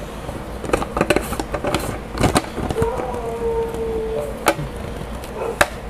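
Plastic clicks and knocks from a 2-litre plastic water bottle and its flip-top lid being handled, scattered irregularly. About three seconds in, a short steady tone lasts about a second and a half.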